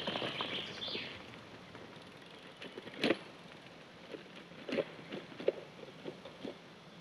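A loaded touring bicycle passing close by on a leaf-strewn forest dirt path, its tyres crackling over dry leaves in the first second, then moving away. After that come scattered sharp clicks and knocks, the loudest about three seconds in.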